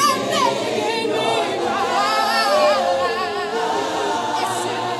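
A group of voices singing a hymn together a cappella, without instruments, the held notes wavering.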